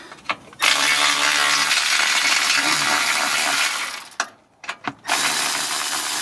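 Milwaukee cordless ratchet running, unscrewing a 12 mm bolt from the engine's dust shield: one long run from about half a second in to about four seconds, a few clicks, then it runs again from about five seconds.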